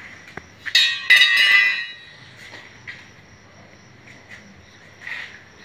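A sharp click, then a loud ringing clink and clatter of hard objects lasting about a second, beginning under a second in.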